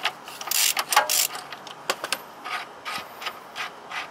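Hand ratchet wrench clicking as it turns the bolt of a car's front lower control arm: a louder cluster of clicks in the first second and a half, then a steady run of about two or three clicks a second.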